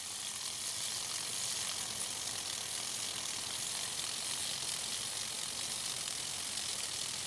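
Antique Zeyssolff Model B lawn sprinkler running: its water jet hisses steadily, along with the clicking of its hook-and-ratchet drive turning the head.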